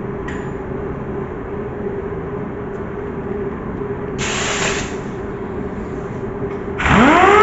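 Steady hum of a shop heater running, with a brief hiss about four seconds in. Near the end a grinder starts up for trimming the deck lid, its whine rising quickly in pitch and then holding steady, much louder than the hum.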